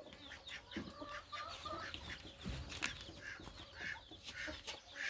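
Chickens clucking, a scatter of short calls on and off.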